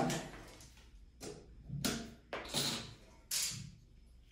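A small metal paint can being handled: four or five short scrapes and knocks as it is turned over in the hands.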